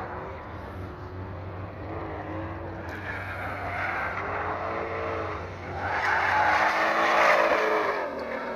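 Cars drifting on a track: engines revving up and down with tyres squealing. The loudest pass comes near the end, as a Mustang slides by in tyre smoke.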